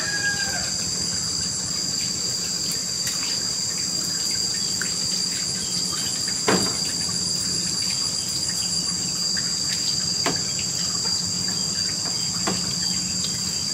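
Insects droning steadily in a continuous high-pitched chorus, with a few soft clicks, the sharpest about halfway through.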